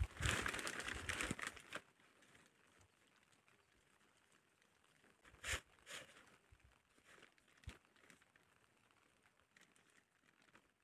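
A crinkling rustle for about two seconds, like plastic sheeting or dry leaves being handled, then mostly quiet with a few faint clicks.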